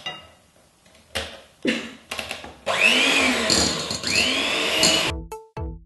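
Electric hand mixer beating chocolate cake batter in a glass bowl. It starts a little under three seconds in and runs for about two and a half seconds, its whine rising and falling twice as the beaters work. Two short knocks come before it.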